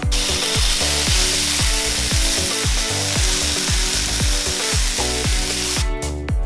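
Marinated chicken sizzling in a hot pan, over background music with a steady beat; the sizzle cuts off suddenly near the end.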